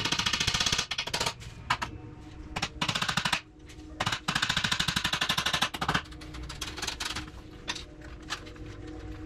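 A power tool with a rapid hammering action running in three bursts, the last the longest, followed by a few scattered lighter clicks.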